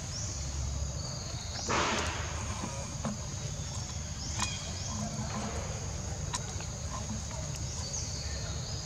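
Outdoor ambience with a steady high insect drone and a low rumble, broken by one brief rustling noise about two seconds in and a few faint clicks.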